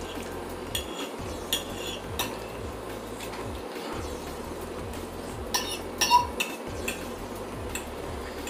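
Metal fork clinking and scraping against a plate while it twirls and lifts noodles: scattered light taps, with a cluster of sharper clinks about five to six seconds in, one ringing briefly.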